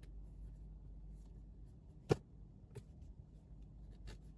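A few faint clicks and taps from operating the car's infotainment controls, the sharpest about two seconds in, over a low steady hum.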